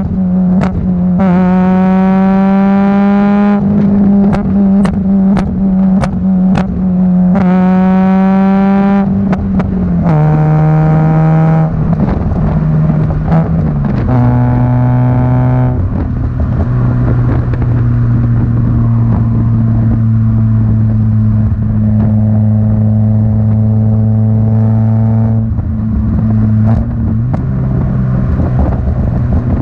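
Peugeot 106 GTi's 1.6 16-valve four-cylinder engine through a decat Supersprint race exhaust: two hard pulls rising in pitch, shorter pulls after, then a steady lower drone at cruise. Sharp pops and cracks from the exhaust come between the pulls and near the end.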